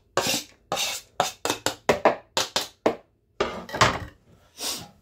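Chopped onion being scraped off a plastic chopping board into a mixing bowl: a quick run of about a dozen short scrapes and taps over the first three seconds, then two longer, softer scrapes near the end.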